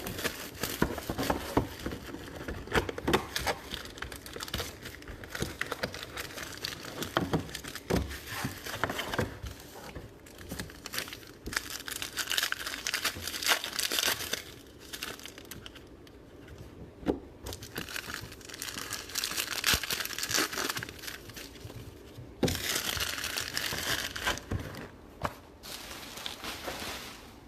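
Plastic wrapping crinkling and tearing, with light clicks and cardboard handling, as a sealed box of trading cards is unwrapped and opened. It comes in uneven stretches, busiest in the middle and toward the end.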